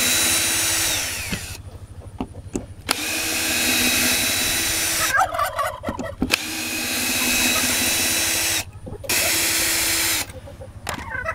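Cordless drill-driver running in four short bursts, backing out the hinge screws of a wooden chicken-coop door that was mounted backwards. The first run winds down in pitch as it stops.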